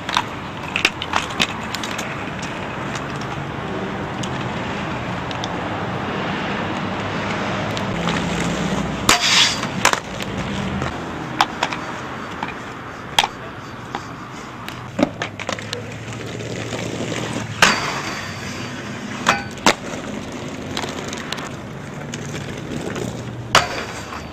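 Aggressive inline skates rolling on concrete, a steady rumble that grows over the first third, then sharp clacks of skates hitting the ground and a metal handrail every second or two. A quick run of knocks near the end as a skater jumps onto the rail.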